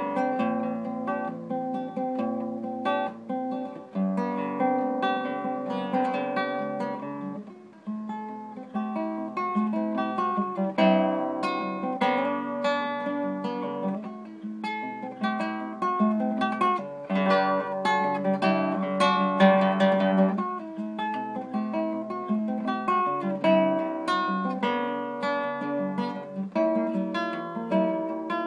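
Classical guitar played solo fingerstyle: plucked melody notes over bass notes and chords, each note ringing and fading, with a brief dip in loudness about eight seconds in.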